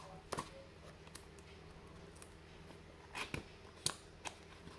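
Fingers prying and easing the lid off a small cardboard box: scattered light clicks and taps of cardboard, a couple in the first second or so and a cluster near the end.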